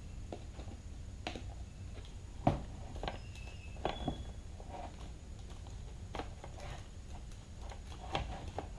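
Scattered light clicks and knocks of a plastic electric string trimmer housing being handled and worked apart, the loudest about two and a half and four seconds in.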